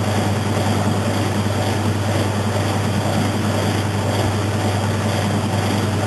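2002 Maytag Atlantis top-load washing machine running, its motor giving a steady, unbroken hum.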